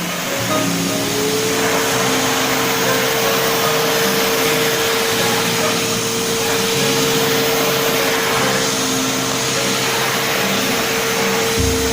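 Kärcher SV 7 steam vacuum cleaner's motor spinning up about half a second in, its whine rising briefly to a steady pitch, then running steadily with a loud rush of suction air.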